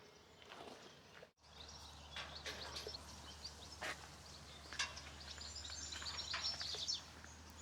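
Birds chirping and calling against faint outdoor background noise, with a brief dropout about a second in.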